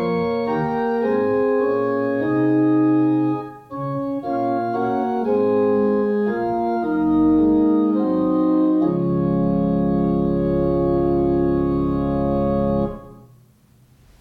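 Organ playing a series of sustained chords, with a brief break about three and a half seconds in, then a long held final chord that is released near the end.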